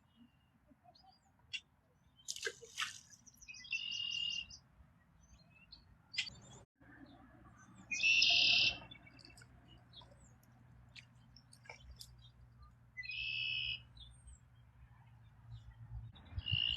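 A bird calling repeatedly: a high call about a second long, four times at intervals of about four to five seconds, with a few short sharp clicks between.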